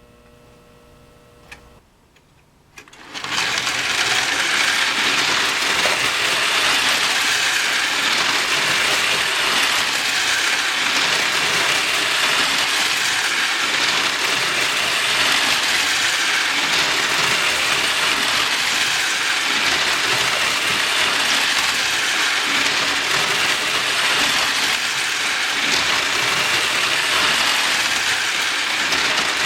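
Wyandotte Toys clockwork wind-up toy locomotive running on tin track: a steady whirring rattle of its spring motor, gears and wheels that starts suddenly about three seconds in.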